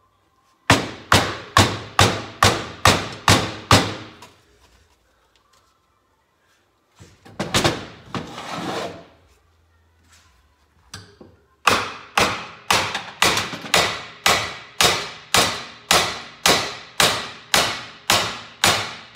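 Repeated hammer blows on the cases of a 1975 Kawasaki KE100 engine, to drive apart case halves held by rust-seized dowel pins. There are two runs of steady strikes, about two to three a second, with a rougher scraping clatter between them.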